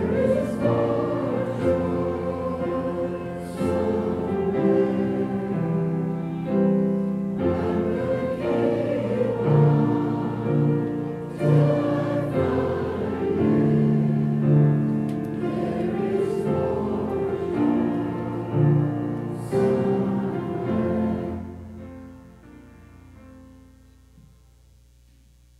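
Congregation singing a hymn together with piano accompaniment, in long held notes; the last chord dies away near the end.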